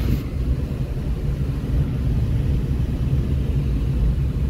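Small Suzuki car's engine and tyres giving a steady low rumble heard from inside the cabin as the car pulls slowly away.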